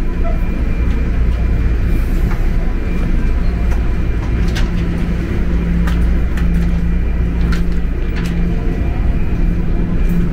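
Toronto Rocket subway train running through the tunnel, heard from inside the car: a steady low rumble with a droning hum that grows stronger about halfway through, and a few sharp clicks and rattles.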